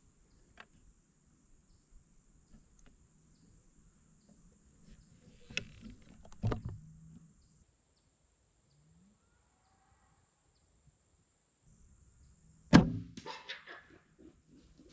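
Quiet open-field ambience with a couple of soft knocks, then about 13 seconds in a single sharp, loud snap from a compound bow being shot, followed briefly by rustling.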